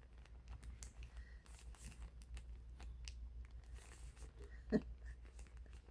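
Faint scattered crackles and small clicks from hands working slime-kit dough and materials, over a steady low hum, with one brief louder pitched sound near the end.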